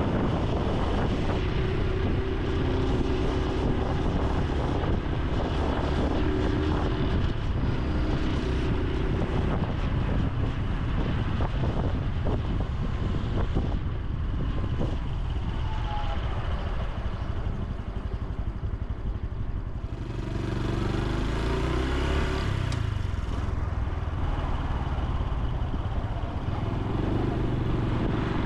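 Honda Super Cub C125's single-cylinder engine and exhaust running while riding. The engine note drops back in the middle, then picks up strongly again about two-thirds through and near the end, as the bike accelerates.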